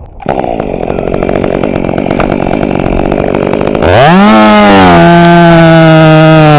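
Chainsaw cutting into pine. About four seconds in, the engine pitch sweeps up sharply and then holds as a steady, loud, high whine at full throttle.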